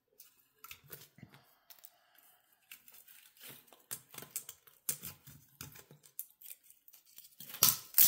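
Dry birch bark being peeled and torn off a log by hand for kindling: an irregular run of short, crisp tearing and crackling sounds, loudest near the end.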